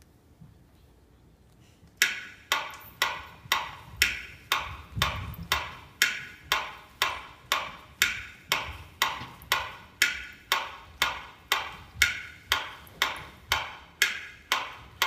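Near silence, then about two seconds in a percussion beat starts in the performance music: a sharp click about twice a second, each ringing briefly, at a steady tempo.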